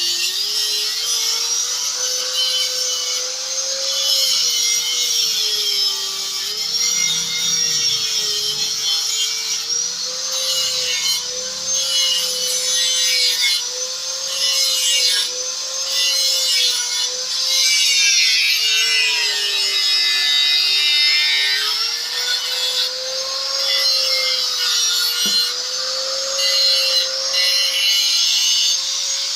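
Power tool motor running with a steady whine that dips and rises slowly under load, over a continuous hissing, rasping noise of the tool working material.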